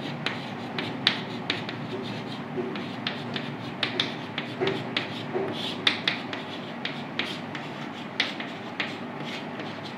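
Chalk writing on a blackboard: irregular short taps and light scratches as the chalk strikes and drags across the board.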